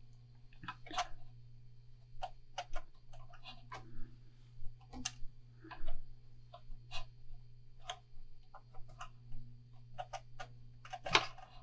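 Irregular light clicks and taps, roughly one or two a second with a louder one near the end, over a faint steady low hum.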